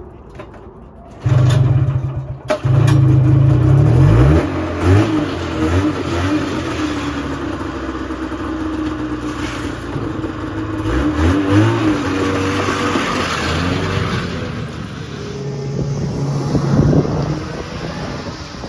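1978 Polaris Cobra 440 snowmobile's two-stroke twin engine, its exhaust freshly refitted, starting about a second in. It falters briefly, then catches and runs, revving up and down unevenly, and grows quieter near the end.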